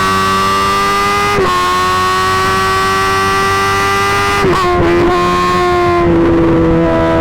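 Suzuki GSX-R1000 inline-four running loud through an M4 GP slip-on exhaust under way, its pitch creeping up and then dipping briefly at gear changes about a second and a half in and again around four and a half seconds.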